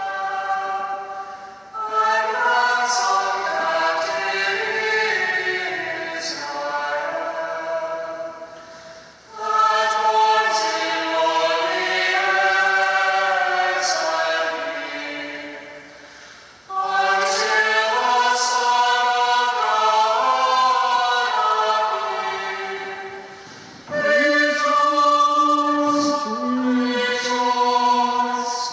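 Choir singing the entrance hymn at the opening of a Mass, in four long phrases each about seven seconds, with short breaths between them.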